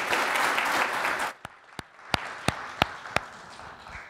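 Audience applauding. The applause dies away about a second in, leaving a few scattered single claps.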